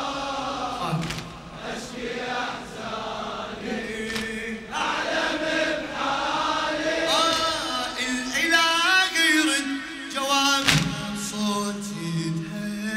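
Male voices chanting a Shia Muharram lament (latmiya): a solo reciter's drawn-out, melismatic singing together with the men's chanted refrain. Sharp claps of hands striking chests fall at intervals through it.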